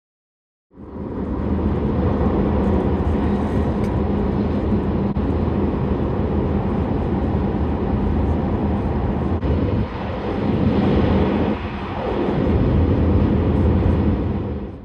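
A moving train's steady running rumble and rattle, dipping briefly twice in the last few seconds and cutting off sharply at the end.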